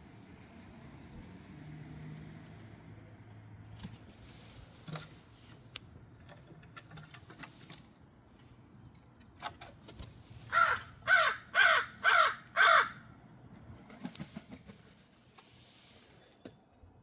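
Crow cawing five times in quick succession, about half a second apart, each caw harsh and falling in pitch.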